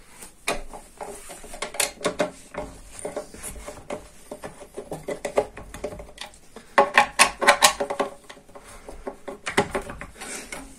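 Screwdriver and spanner tightening a bolt through a wooden bed frame's steel rail: scattered metal clicks, clinks and scrapes, with a quick run of clinks about seven seconds in and more near the end.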